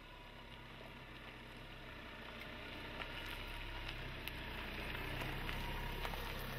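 Isuzu D-Max's 1.9-litre common-rail diesel engine running at low revs as the pickup crawls up a rock ramp, growing steadily louder as it nears. A few brief clicks stand out over the engine.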